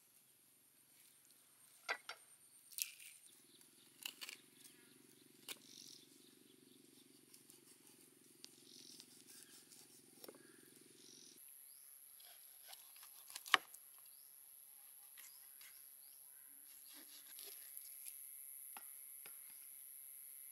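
Kitchen knife scraping scales off a whole fish and knocking against a wooden chopping board: scattered sharp scrapes and clicks, the loudest about two-thirds of the way in, over a faint steady hum.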